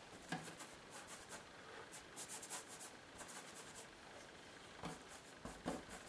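One-inch varnish brush scrubbing acrylic paint onto a textured board: faint scratchy brush strokes in short runs, with a couple of soft knocks near the end.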